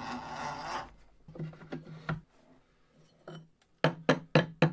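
Antique Ixion hand-crank drill press cutting through steel plate, its steady drilling noise stopping about a second in. After a few faint clicks, a quick run of about five sharp metallic clinks and taps comes near the end as the drilled steel plate is lifted from the wood block and chips.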